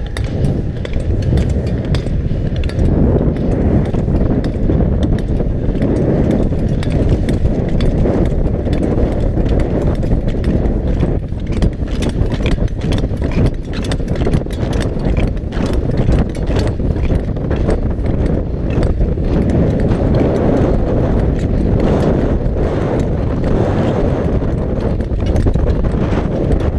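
Rushing wind buffeting a speed skater's camera microphone at racing speed, a constant low rumble. Through it comes a fast, irregular run of sharp clacks and scrapes from long-track clap skate blades striking and pushing off the ice with each stride.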